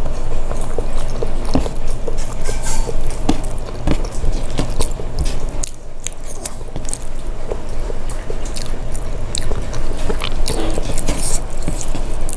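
A person chewing and biting food close to the microphone, with many quick wet mouth clicks and smacks throughout.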